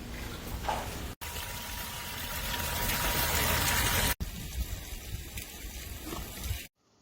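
Water splashing and gushing from a submersible fountain pump's spray. It cuts off abruptly twice, is louder and hissier in the middle stretch, and stops shortly before the end.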